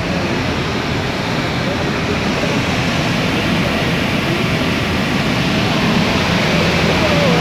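Water gushing out under an opened dam spillway gate (shutter), a loud, steady rush of discharging water that grows slightly louder.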